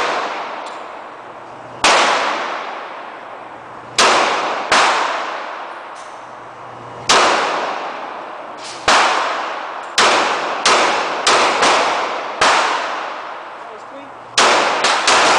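Glock pistol firing about a dozen shots at an irregular pace, some in quick pairs and triples, each shot followed by a long echoing tail.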